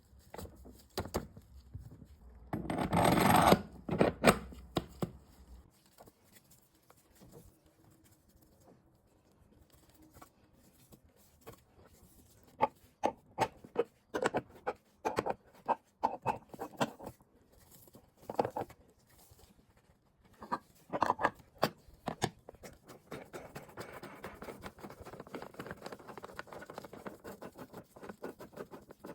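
Hand work on metal parts: scattered sharp clicks, knocks and scraping. A louder scraping burst lasting about two seconds comes near the start.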